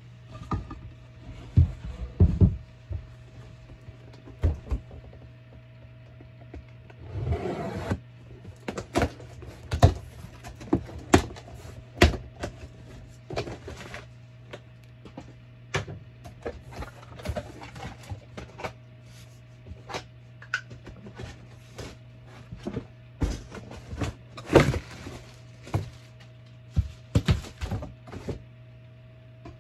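Cardboard box being handled and opened: irregular knocks, taps and clicks, with a couple of longer scraping, rustling stretches, over a steady low hum.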